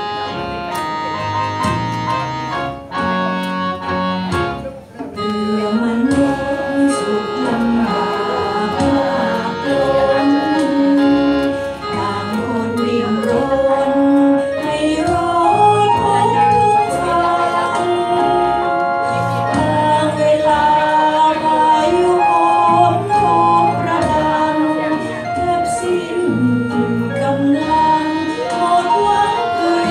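A woman singing a Thai song into a microphone over a karaoke backing track with electronic keyboard. The backing plays alone for about the first five seconds before her voice comes in.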